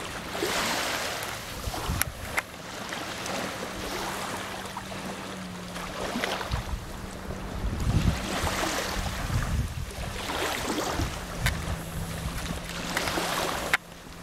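Wind gusting on the microphone over lapping river water, swelling and fading every couple of seconds, with a faint steady low hum underneath and a few small clicks.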